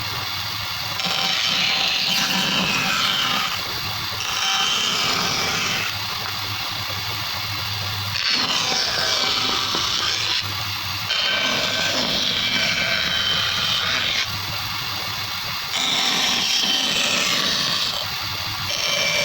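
Woodworking power tools running on wood in a series of short clips. Each clip lasts two to three seconds and is cut off sharply by the next, with a steady motor hum under some of them.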